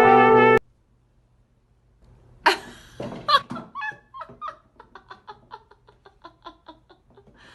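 A short loud steady tone cuts off about half a second in. After a pause, a dog gives two loud yelps, then a run of short whining cries at about three or four a second.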